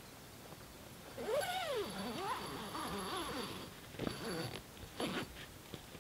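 An animal calling: a run of pitched cries, each rising and falling, starting about a second in and breaking off about four seconds later.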